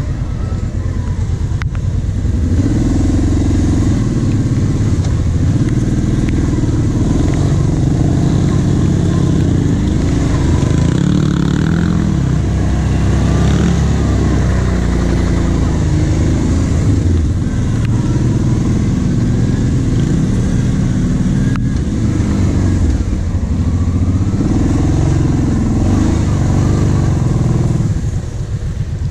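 Kawasaki Brute Force 750 ATV's V-twin engine running under load on an offroad trail, its pitch rising and falling with the throttle, and easing off near the end.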